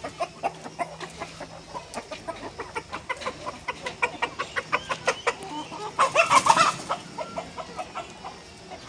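Free-range chickens clucking, many short calls in quick succession, with a louder burst of calls about six seconds in.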